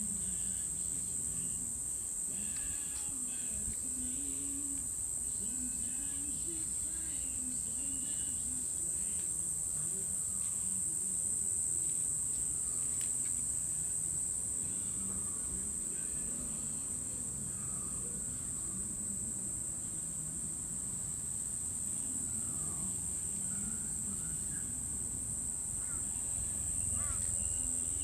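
Insect chorus: a steady, high-pitched drone that holds without a break.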